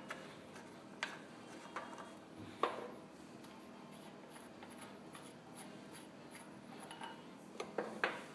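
Caps being unscrewed by hand from the brass service valves of a refrigeration compressor: small clicks and rubbing of the caps on the valve threads, the sharpest about two and a half seconds in and a few more near the end, over a faint steady hum.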